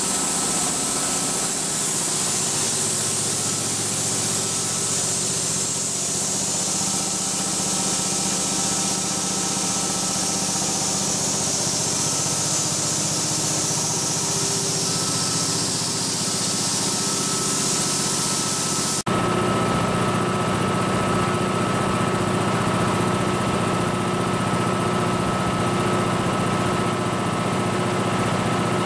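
Ingersoll Rand H15T4 20 hp high-pressure breathing-air compressor running steadily, a machine hum with a high hiss over it. About two-thirds of the way through the sound cuts abruptly to a slightly louder, harsher run.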